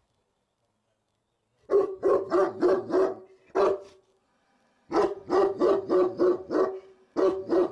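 A Cane Corso barking loudly at a gate, in quick runs of about four barks a second that start about two seconds in, pause briefly, and resume near five seconds and again near the end. It is territorial alert barking at people it can hear next door but cannot see.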